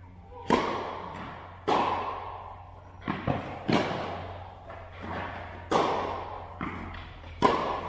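A tennis serve and rally: sharp racket strikes on the ball every one to two seconds, with quieter ball bounces between them, each hit ringing with a long echo in a large metal-walled indoor hall.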